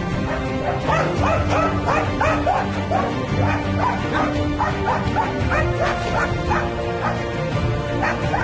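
Small dachshund yapping in a rapid run of short, high yips, about three a second, as it herds young calves into a corner. Background music plays underneath.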